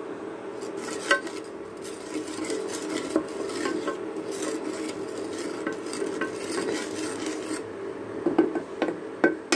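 Spatula scraping and clicking against the inside of an aluminium pressure cooker while stirring salt and turmeric into hot oil, with a few sharper knocks about a second in and near the end. A steady low hum runs underneath.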